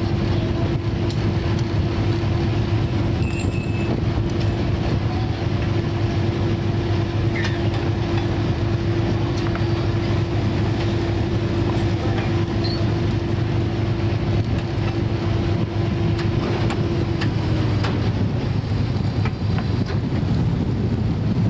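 A fishing boat's engine running steadily, a low rumble with a constant hum that dips slightly in pitch a few seconds before the end.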